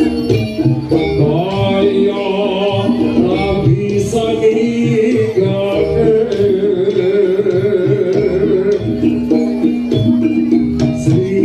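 Jaranan (kuda lumping) accompaniment music: hand drums beating a quick, busy rhythm under a wavering, sustained melody line.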